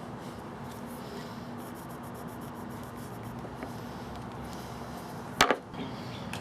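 Light scratching of a pencil marking the centers of small wooden blocks, over a faint steady hum, then a single sharp knock about five seconds in.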